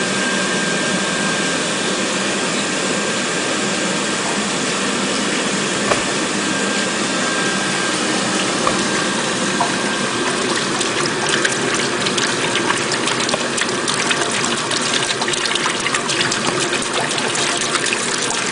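Water heating on an induction cooker: a steady rushing noise with a faint steady whine, and small crackles and ticks that grow denser from about ten seconds in as the water nears the boil.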